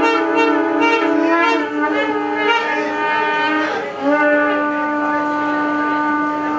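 Conch shells (shankh) blown together in long, steady, held blasts. The sound breaks off a little before four seconds in, and a fresh blast starts with a short upward slide and is held.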